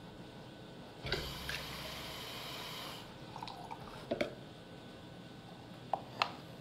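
Water pouring for about two seconds into the cut-off top of a plastic pop bottle, filling it, followed by a few light knocks and clicks.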